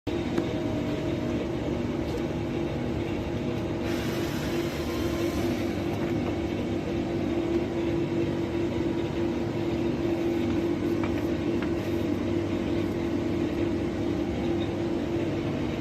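Air conditioning unit running with a steady machine hum and a strong held tone, with a brief hiss about four seconds in lasting a second or so.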